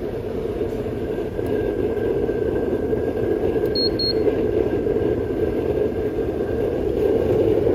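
Homemade waste-oil burner stove running on its electric blower fan, a steady loud rushing noise of forced air and flame. About four seconds in, a handheld infrared thermometer gives two quick beeps as it takes the flame's temperature.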